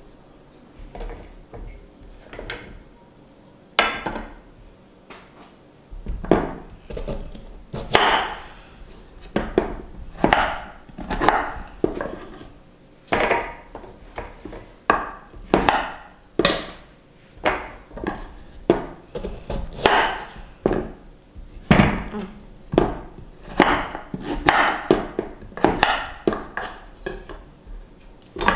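Kitchen knife cutting a crisp peeled jicama into slices on a wooden cutting board: short crunching cuts, each ending in a knock of the blade on the board. A few scattered cuts at first, then a steady run of them about once a second from about six seconds in.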